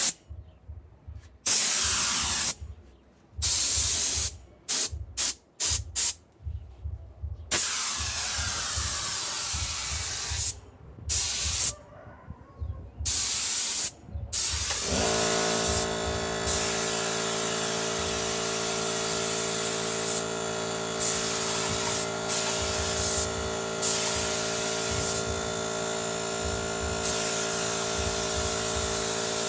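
Short, irregular blasts of compressed air hissing from a nozzle. About halfway through, the 24-litre Motomil air compressor's motor and pump cut in and run steadily, with more air blasts over the top.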